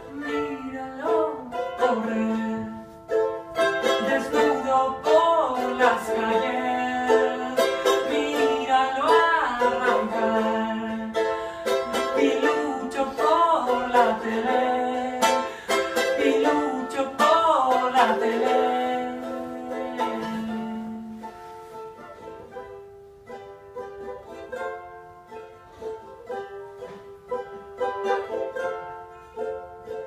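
A charango being strummed and plucked, with a wordless sung melody over it that stops about two-thirds of the way through. After that the charango plays on alone, more quietly.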